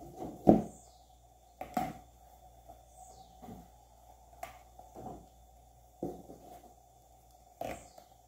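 Plastic lotion bottles being lifted out of a cardboard box and set down one by one on a table: a series of separate knocks and light rustles, the loudest about half a second in.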